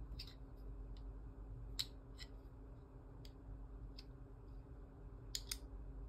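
Small plastic clicks from a small black plastic piece being handled and snapped together: scattered light clicks, a sharp one about two seconds in and a quick pair near the end. A faint steady hum runs underneath.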